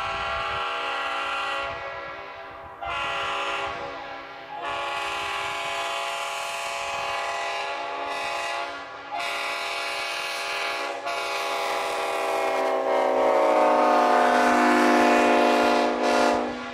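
Multi-chime locomotive air horn blown in a series of blasts, a sustained chord of several notes sounding together, with short gaps between blasts and the longest blast near the end.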